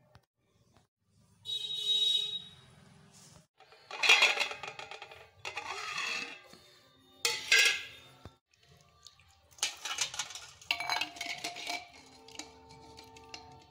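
Stainless-steel bowls and a steel plate clanking and ringing as boiled eggs are scooped out of water with a spoon and dropped into another steel bowl of water, with some splashing. There are about half a dozen separate clatters, several of them leaving a ringing tone that hangs for a moment.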